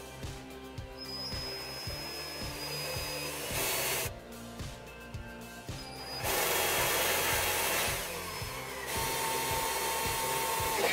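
Cordless drill boring into a wooden board through a steel angle-bracket guide, running in several spells with a steady motor whine, loudest around the middle. Background music with a steady beat underneath.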